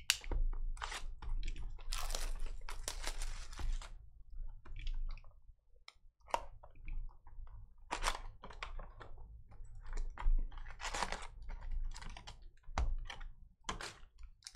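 A hobby box of trading cards being opened and unpacked by hand: cardboard and wrapping rustling, foil card packs crinkling and clicking as they are pulled out and stacked, in short irregular bursts.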